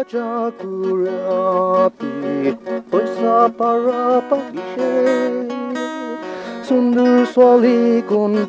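A man singing a song in a local language, accompanied by an acoustic guitar.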